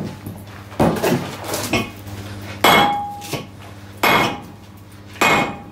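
Sledgehammer blows on a handled top tool driven into a red-hot 60 mm thick steel plate: four heavy metallic strikes roughly a second apart, the loudest, about two and a half seconds in, ringing briefly.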